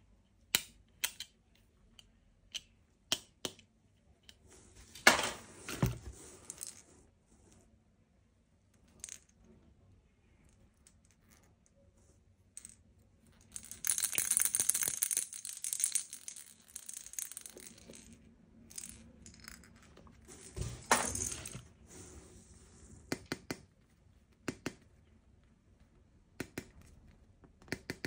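Plastic toy gun parts and accessories being handled: scattered sharp clicks and knocks, two louder clattering bursts, and a few seconds of dense rattling in the middle.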